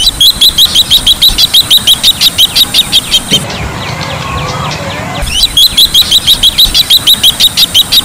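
Bronze-winged jacana calling: two runs of quick, high piping notes, about six a second and each lasting some three seconds. Between the runs comes a lower, wavering sound.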